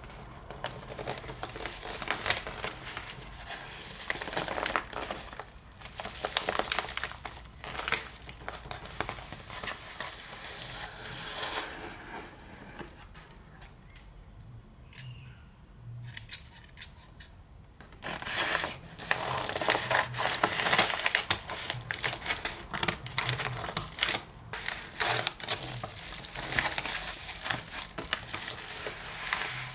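Crinkling and rustling of a yellow padded paper mailer being handled, with scissors cutting into it midway. The crinkling is louder and denser in the last third.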